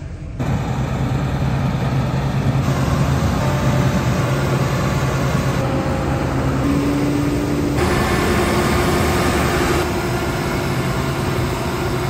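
Diesel engines of a New Holland tractor and a Claas combine harvester running in the field: a loud, steady heavy drone with a low hum, its character changing abruptly every two or three seconds.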